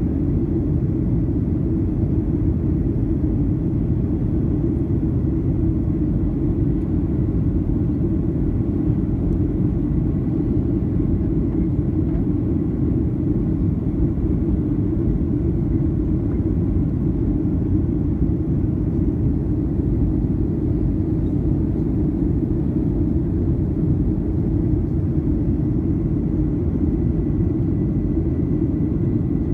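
Steady low rumble of a Boeing 737-800's CFM56 engines and airflow, heard inside the passenger cabin in flight, with a faint steady high tone above it.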